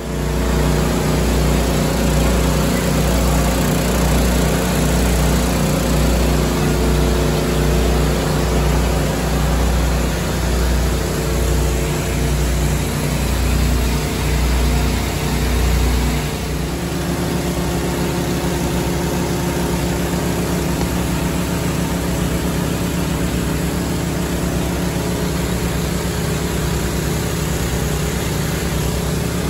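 Small gasoline engines of portable pumps running steadily under load, dewatering the flooded hull, with a pulsing low throb. About sixteen seconds in the sound changes to a slightly quieter, smoother run.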